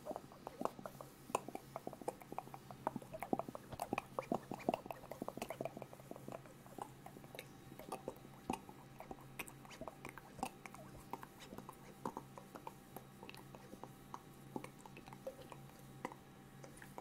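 Close-miked ASMR mouth sounds: a rapid run of wet clicks and smacks from the lips and tongue. They come thickly for about the first six seconds, then more sparsely.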